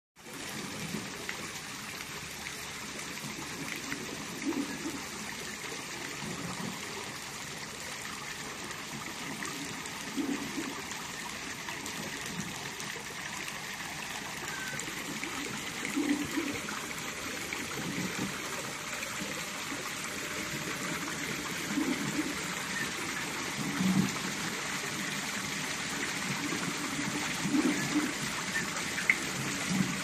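Water trickling and splashing steadily as a water wheel and small cascade keep a pond circulating, with deeper splashes at irregular intervals of a few seconds.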